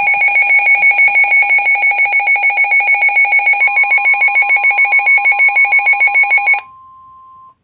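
A weather radio receiver's built-in alert beeping, a rapid electronic pulsing of about nine beeps a second, set off by an incoming severe thunderstorm warning. From a little past halfway, the broadcast's steady 1050 Hz NOAA warning alarm tone sounds underneath. The beeping cuts off abruptly near the end and the tone carries on alone for about a second.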